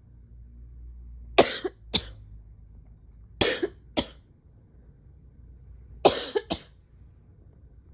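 A person coughing in three short bouts, each of two sharp coughs about half a second apart, with the bouts about two seconds apart.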